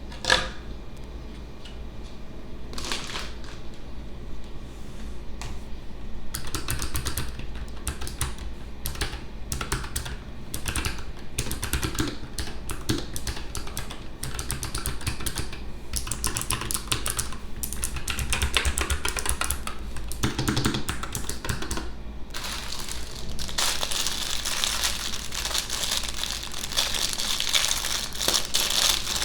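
Unboxing a mechanical keyboard: scattered sharp clicks, then a long run of quick irregular clicks and taps as the keyboard and its box are handled. In the last few seconds this gives way to continuous crinkling of packaging wrap.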